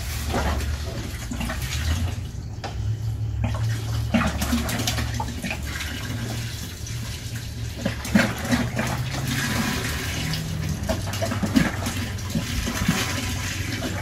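Water pouring steadily from a plastic jerry can into the plastic wash tub of a twin tub washing machine, topping up the wash water.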